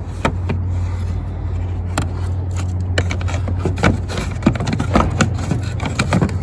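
Hard plastic trim panel and push clips being handled and pressed into place by hand: scattered clicks, knocks and scrapes of plastic, over a steady low hum.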